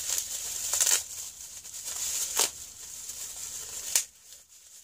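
Bubble wrap being unwrapped by hand, crinkling and rustling with a few sharper crackles, then dying away about four seconds in.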